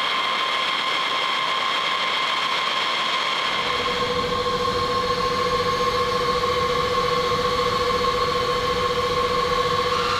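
Steady high whine of aircraft jet turbines, with a low rumble joining about three and a half seconds in.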